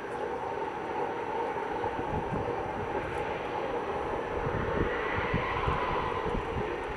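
Large off-highway mining haul truck's diesel engine running as it drives across the pit, a steady drone carried over distance. A tone in the drone rises a little about five seconds in, over an uneven low rumble in the second half.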